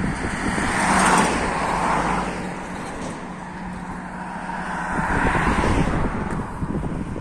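Road traffic passing over the bridge: two swells of tyre and engine noise, one about a second in and another around five seconds in.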